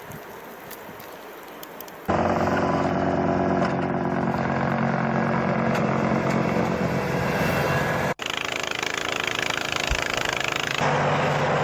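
Vehicle engine noise: a steady engine drone that starts abruptly about two seconds in after a quieter stretch of noise, and cuts out briefly about eight seconds in and changes again near eleven seconds, as clips of footage change.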